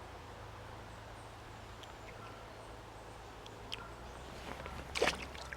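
Quiet riverside ambience with a low steady background and a few faint bird chirps. A short, sharp noisy sound about five seconds in.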